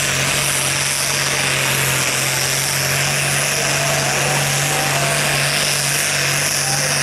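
Perkins diesel engine of a vintage tractor held at high revs under heavy load while pulling a weight-transfer sled, a loud, steady drone throughout.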